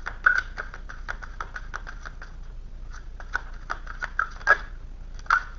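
Tarot cards being handled: a run of quick, irregular small clicks and snaps of card stock, several a second, with a few sharper snaps.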